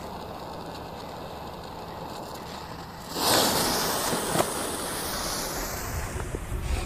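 A firework cake's fuse catching about three seconds in and hissing steadily as it throws sparks, the loudest sound here. Low rumbling of wind on the microphone comes in near the end.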